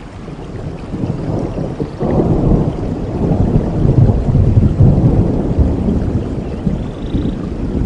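Rain falling in a forest under a long, low rumble of thunder that swells about two seconds in and eases off near the end.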